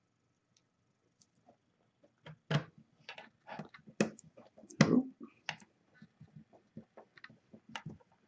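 Irregular small clicks and taps of a screwdriver and screws as the case screws go back into an AsRock DeskMini 310W mini-PC case, with a couple of louder knocks about two and a half and five seconds in.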